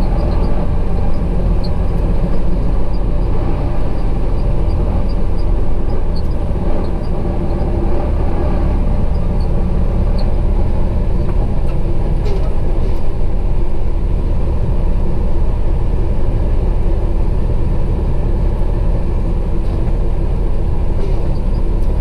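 Truck cab engine and road noise while driving: a steady low rumble with no change in pace, heard from inside the cab.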